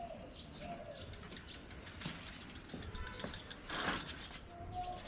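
Pigeons cooing in the background, with scattered light clicks and one brief loud burst of noise about four seconds in.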